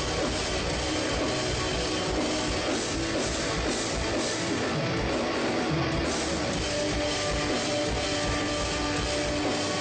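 Metalcore band playing live at a sound check: distorted electric guitars and a drum kit, dense and steady with sustained chords.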